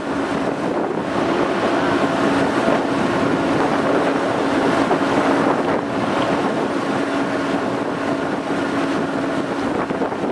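Wind buffeting the microphone on the deck of a moving tour boat, over the boat's steady engine hum, which fades near the end.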